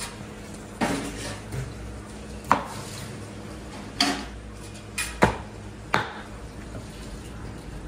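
Meat cleaver chopping raw beef on a wooden log chopping block: six sharp chops at uneven intervals, two of them in quick succession about five seconds in.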